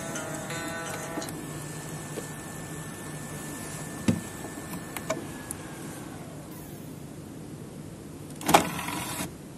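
CD-ROM drive running without its cover, its spindle motor winding the disc down after being stopped: a steady whine that fades and falls in pitch about six seconds in. A few light clicks, and a louder knock near the end.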